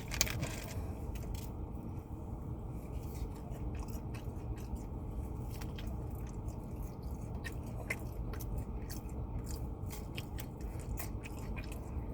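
A person chewing and eating fries, with many small sharp mouth clicks and crunches scattered throughout, over a steady low background hum.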